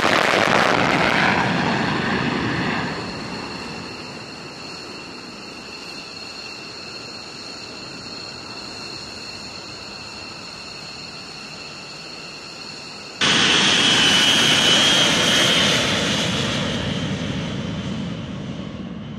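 Single-engine F-35 fighter taking off on afterburner: loud jet noise that falls away over the first few seconds as it climbs off, leaving a fainter steady high whine. About thirteen seconds in the sound cuts abruptly to the louder noise of a B-52 bomber's eight jet engines at takeoff power, slowly fading toward the end.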